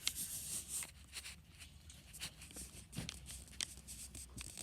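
Handling noise: scattered light clicks and rustling, with a short hiss of rubbing about the first second.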